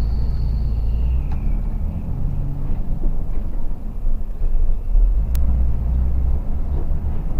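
Steady low rumble of a Mercedes-Benz O500RS 1836 coach underway, engine and road noise heard from inside the cabin. A faint high tone fades out in the first two seconds, and there is a single sharp click about five seconds in.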